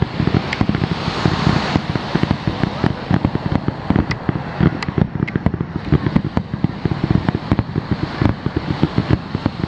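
Distant aerial fireworks bursting over the sea, with sharp pops and crackles over a dense, continuous low rumble and buffeting.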